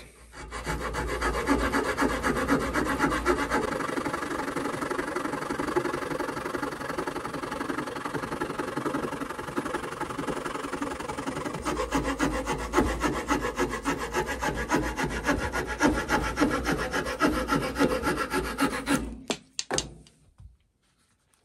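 Victorinox Swiss Army knife's folding wood saw cutting a wooden dowel held in a vise, with quick, steady back-and-forth strokes. The sawing stops about 19 seconds in, followed by a few light clicks.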